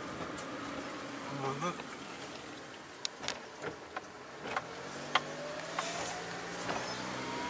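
Steady noise inside a moving car, with several sharp clicks of handling in the middle and a faint whine rising slowly in pitch over the last couple of seconds.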